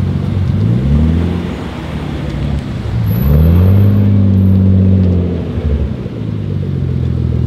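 Big-turbo Nissan Skyline R32 GT-R's straight-six idling as the car pulls away slowly, with a short rev about a second in and a longer rev from about three seconds that climbs, holds and drops back to idle.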